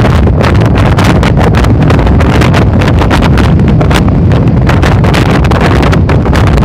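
Strong wind buffeting the microphone: a loud, constant low rumble with a dense crackling flutter over it.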